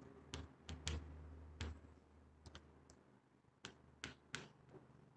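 Faint, scattered sharp clicks and taps, about ten over a few seconds, with near silence between them.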